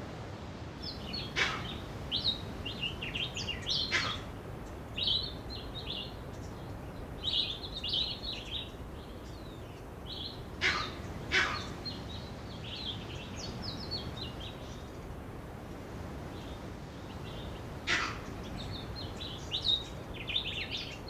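Birds chirping and twittering in rapid runs of short calls, over a steady low background rush. A few sharp clicks or cracks stand out above them: two near the start, a pair about eleven seconds in, and one more near eighteen seconds.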